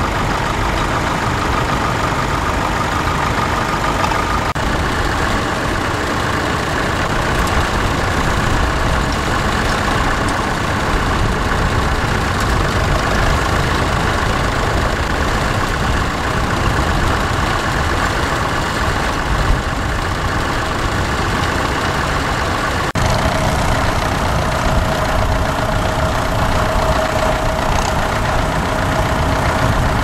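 Vintage Massey Ferguson tractor engine running steadily while pulling a plough. The engine note changes abruptly about four seconds in and again about 23 seconds in, the second time with a steady higher tone.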